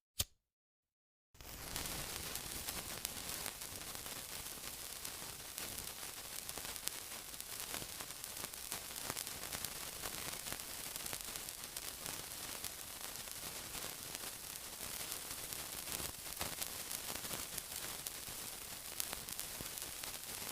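A single sharp click, then about a second of silence, then steady sizzling with fine crackles and pops.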